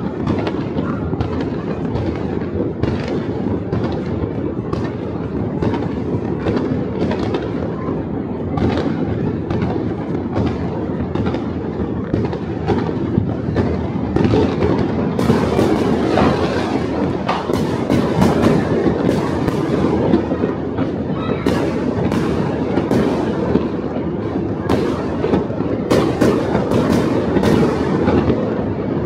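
New Year fireworks and firecrackers going off in large numbers: a dense, continuous rumble of distant bursts with many sharp bangs on top. The bangs come more often from about halfway in.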